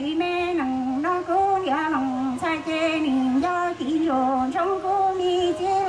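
A woman singing solo into a handheld microphone, amplified through a stage PA, holding long notes that step up and down between short breaths.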